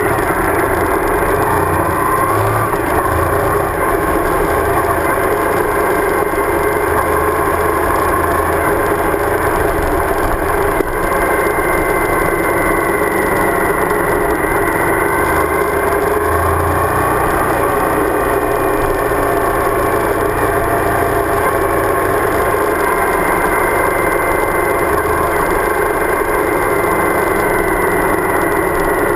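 Suzuki V-Strom DL1000's V-twin engine running steadily as the motorcycle is ridden, its pitch rising and falling a little with the throttle.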